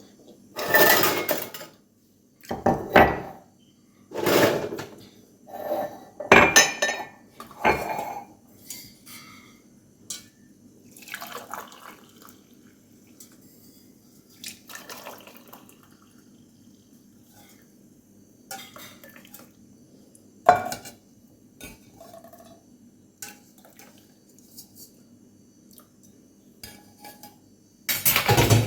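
Dishes and cutlery clattering and clinking: a run of short clatters over the first eight seconds or so, then scattered light clinks, and a longer, louder clatter near the end.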